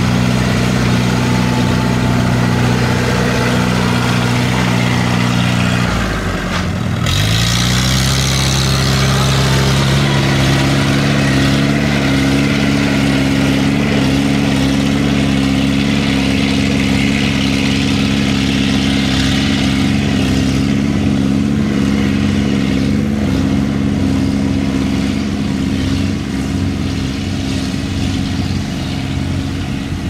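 Engine of a small farm cart loaded with rice sacks, running steadily as it drives. About six seconds in, the engine note dips briefly and then climbs back up to a steady pitch.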